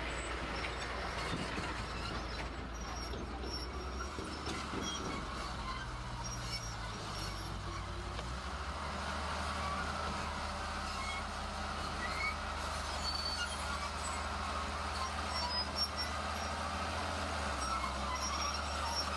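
Heavy diesel earthmoving machinery running at a worksite, a low steady engine note that changes pitch about four seconds in and again about eight seconds in, over a constant metallic rattle.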